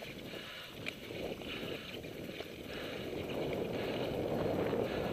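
Wind buffeting a helmet-mounted camera's microphone over mountain bike tyres rolling on a dirt singletrack, growing louder about three seconds in.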